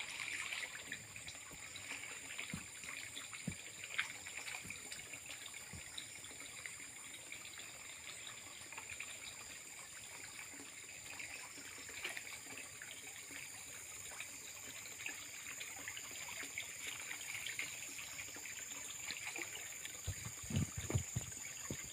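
Muddy pond water sloshing and splashing faintly as a person wades waist-deep and sweeps a scoop net through it, with a run of louder splashes near the end. A steady high-pitched hiss sits underneath throughout.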